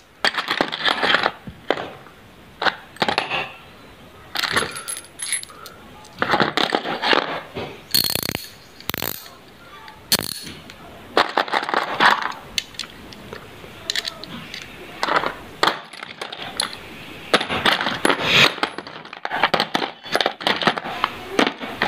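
Small metal pieces clinking and rattling against each other and a hard surface, in repeated bursts of sharp clicks with a brief metallic ring.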